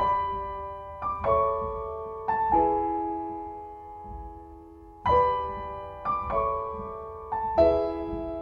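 Background music: slow, gentle solo piano, with notes and chords struck about once a second and left to ring and fade.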